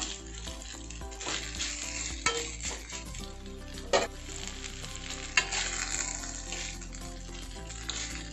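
Egg noodles with vegetables sizzling in a stainless steel pan as they are tossed and stirred with a metal utensil, with a few sharp knocks of the utensil against the pan, the loudest about four seconds in.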